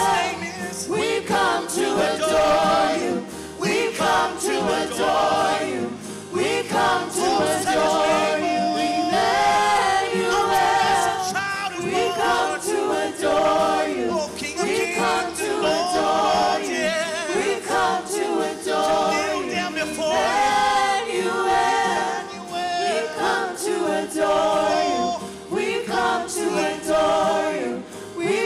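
A worship team of women and a man singing together into microphones, several voices at once, with little instrumental backing.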